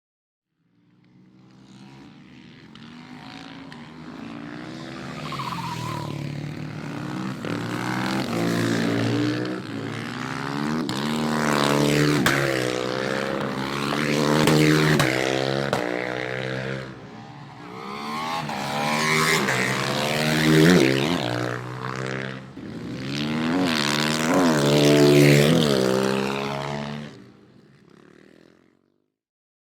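Racing motorcycle engine revving hard, its pitch climbing and dropping again and again with throttle and gear changes. It fades in from nothing over the first few seconds, swells and eases several times, then fades away shortly before the end.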